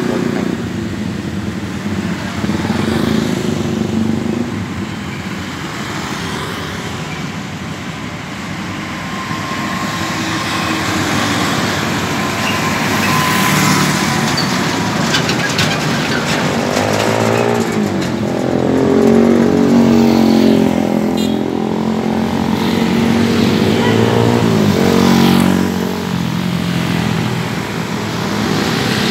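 Busy port road traffic: container trailer trucks, cars and motorcycles passing close with their engines running, and engine notes sweeping up and down as vehicles go by, most strongly around the middle.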